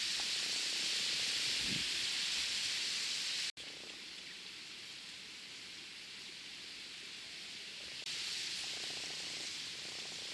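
Steady outdoor ambient hiss at a fishing spot. It cuts off abruptly about three and a half seconds in, continues quieter, and steps back up louder near eight seconds.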